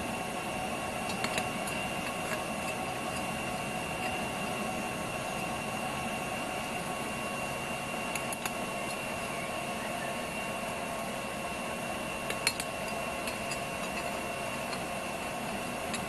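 Electric blower forcing air into a backyard melting furnace, a steady whine with several high tones. A metal skimmer clinks against the melting pot a few times as slag is skimmed off molten aluminium, the sharpest clink about twelve seconds in.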